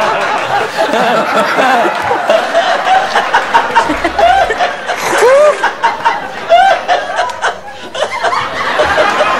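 Several people laughing at once, their laughs overlapping and continuing through the whole stretch.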